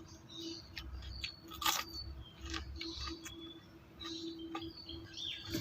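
Irregular crisp crunches of someone biting and chewing raw bitter gourd, the sharpest about a third of the way in, with birds chirping in the background.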